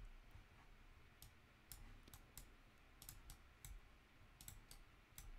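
Faint computer mouse clicks: about a dozen quick, separate clicks at an uneven pace, as faces of a model are clicked with a paint-fill tool.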